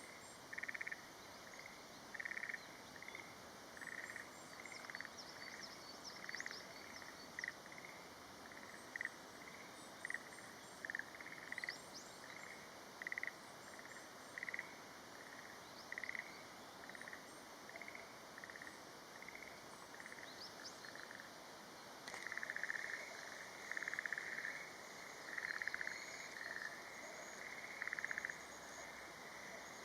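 Frogs calling at a pond: short pulsed croaks repeating about once a second, with a louder, denser chorus of overlapping calls about two-thirds of the way through. Faint high chirps of small birds or insects sound over a steady hiss.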